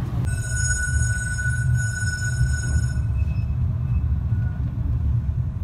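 Heritage tram running on the tramway, heard from on board: a steady low rumble of the traction motors and wheels on the rails. For the first half or so a steady high-pitched squeal rides on top, then stops.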